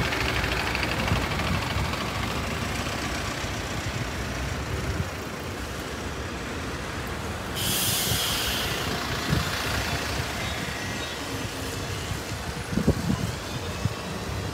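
Bus traffic in the street, with one short air-brake hiss from a bus a little over halfway through, lasting about a second.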